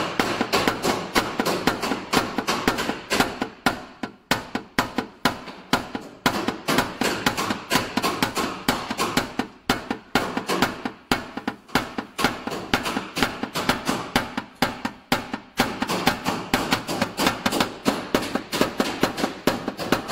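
A plastic-headed paintless-dent-repair tap-down hammer tapping rapidly on a car's sheet-metal fender, about four to five light knocks a second with a few brief pauses. The blows knock down the raised edges along the crease of the dent, a stage of paintless dent repair.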